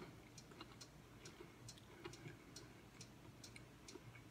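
Near silence with a faint, steady ticking, about two ticks a second, over a low hum.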